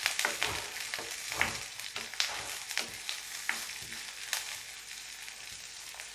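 Chopped onions sizzling in hot oil in an iron kadhai, stirred with a wooden spoon that scrapes against the pan every half second or so.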